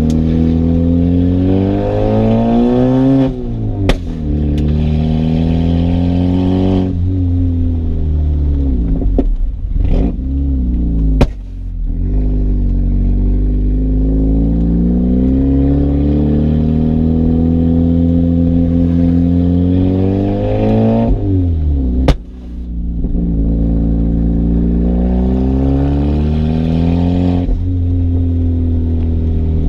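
Turbocharged 1.8T inline-four of a Volkswagen Jetta Mk4 accelerating hard through the gears: the engine note climbs in each gear and falls away at each shift, four times. A few sharp cracks come at some of the shifts.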